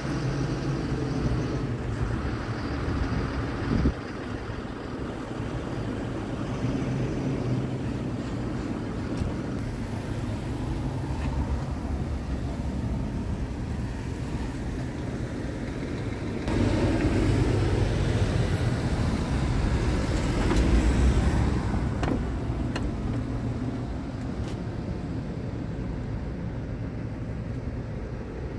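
Scania R 450 tractor unit's 13-litre six-cylinder diesel idling steadily, a low even hum that grows louder for several seconds past the middle. A single thud about four seconds in.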